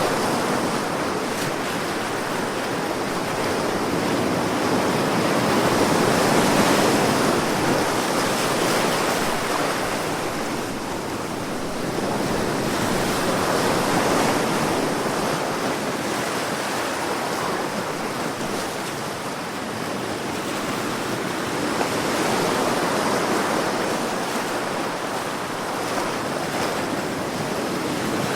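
Sea waves breaking and washing on the shore, the surf swelling and falling back every several seconds.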